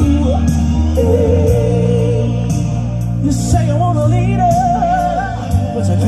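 Male lead singer performing a soul song over instrumental accompaniment with a sustained bass and a regular cymbal beat. His voice holds long, wavering notes and moves to a higher held note about halfway through.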